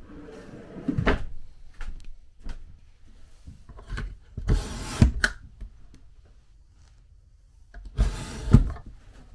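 A wooden pull-out pantry rolls open on its slides and stops with a knock. Then a pop-up countertop power outlet is worked by hand, with clicks and a sliding rattle about four seconds in and again near the end.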